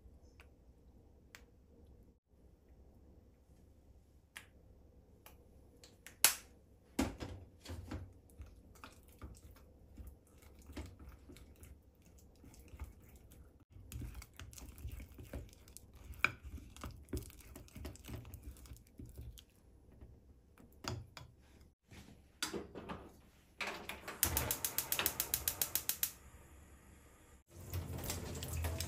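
Scattered light clicks and knocks of things being handled in a kitchen, with a fast run of even clicks for about two seconds near the end. A tap then starts running water.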